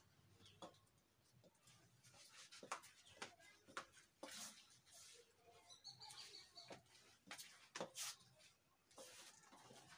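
Near silence: faint scattered clicks and rustles, with a faint bird chirp about six seconds in.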